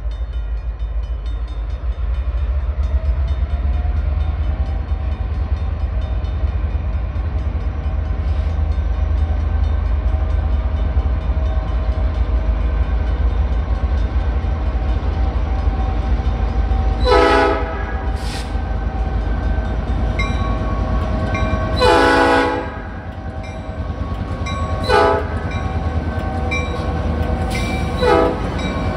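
Norfolk Southern freight train approaching and passing, its diesel-electric locomotives, an EMD GP38-2 in the lead with two GP60s behind, rumbling steadily. From a bit past halfway the lead unit's air horn sounds five times, mostly short blasts with one longer, loudest blast about three-quarters through, as for a grade crossing. The lead GP38-2 has the heavy, bad exhaust noted by the uploader.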